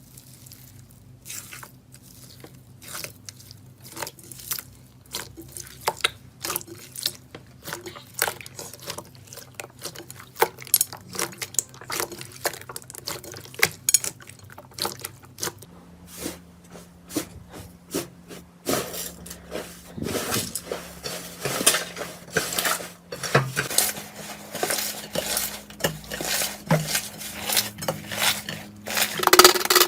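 Slime being handled and pressed, giving many quick clicks and crackles that come denser and louder from about two-thirds of the way in.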